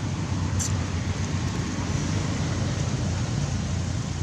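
Steady low outdoor rumble with no distinct events, plus one faint brief tick about half a second in.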